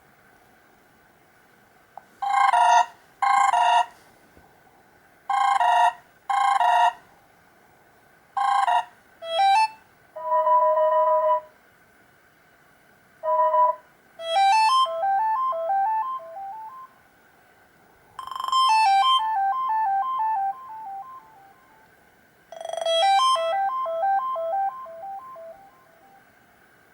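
Stock ringtones and alert tones of a Black Fox B5 smartphone played one after another. First come short electronic chimes, several in pairs, then a steady two-tone beep about a second long. Three short rippling melodic jingles follow.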